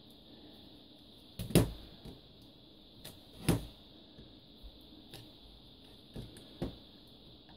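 Hard plastic clicks and knocks as the two halves of an Allen-Bradley 1794-TB3 Flex I/O wiring base are pressed and snapped back together. Two louder knocks come about a second and a half in and about three and a half seconds in, with a few lighter taps near the end.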